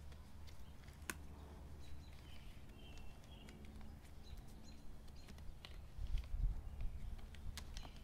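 Handling of a mower grass-catcher bag as its plastic clips are pushed over the bag's metal frame: one sharp click about a second in and two more near the end, with rustling of the bag fabric. Birds chirp faintly in the background.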